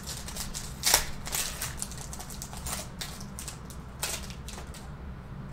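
Foil wrapper of a trading-card pack crinkling as it is torn open, mixed with cards being handled: a run of short crackly rustles, the loudest about a second in and about four seconds in.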